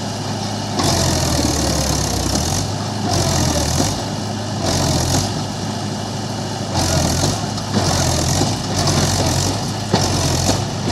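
Mahindra tractor's diesel engine working hard under load as it hauls a heavily loaded trolley through deep mud, the engine note rising and falling in surges every second or two.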